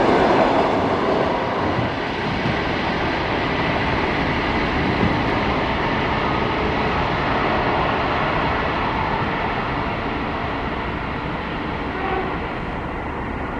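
ED4M electric multiple unit train pulling away, its running and wheel-on-rail noise a dense, steady rumble that slowly fades as it recedes.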